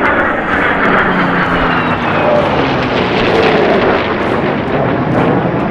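Airplane flying past, its engine noise loud and steady, with a faint whine that slowly falls in pitch.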